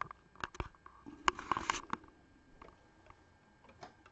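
A few light clicks and knocks of handling, mostly in the first two seconds, then only faint ticks. No machine motor is running.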